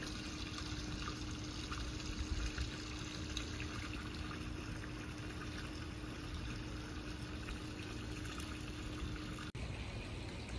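Water spilling from a raised spa over a tiled ledge into a swimming pool: a steady trickling splash with a faint steady hum beneath it, cutting off abruptly near the end.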